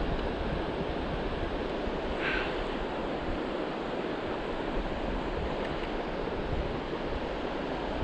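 Shallow mountain stream running over a rocky bed: a steady rush of moving water.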